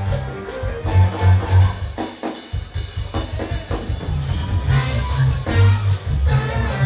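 Live band playing an instrumental groove with drum kit, congas, bass, guitar, keyboards and a horn section. The bass drops out briefly about two seconds in, leaving mostly drum hits, then the full band with horns builds back in.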